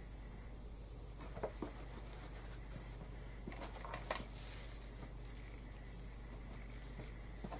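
Quiet hand-handling sounds at a craft table: a few small knocks and clicks, and a brief rustle with the loudest click about four seconds in, as hands set down a hot glue gun and press peacock feathers onto a felt top hat.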